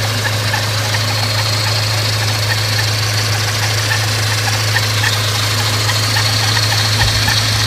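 Supercharged Scion FR-S flat-four engine running steadily at a constant speed, with a steady high whine and a light repeating ticking over a low hum: the loud noise the owner is recording.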